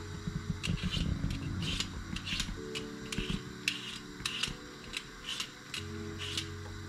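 Potato being peeled with a hand vegetable peeler: a short, sharp scrape with each stroke, a few strokes a second at an uneven pace, over soft background music.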